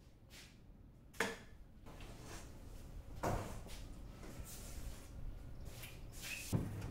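A thin plywood sheet being lifted and moved, with rustling and scraping and three sharp wooden knocks: one about a second in, one about three seconds in and one near the end.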